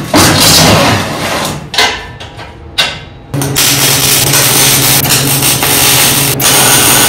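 A loud burst of noise and two sharp knocks, then a little over three seconds in an arc welder strikes up and runs steadily with a low, even buzz while it welds steel square tubing.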